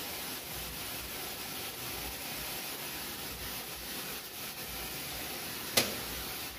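Aerosol pipe-freezer spray hissing steadily as it is sprayed onto car sound-deadening material to freeze it so it can be chipped off the floor pan. A single short, sharp click near the end.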